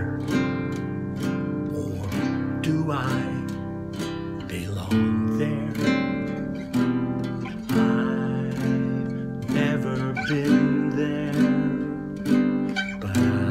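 Classical nylon-string acoustic guitar played solo, chords plucked and strummed in a steady rhythm as an instrumental passage.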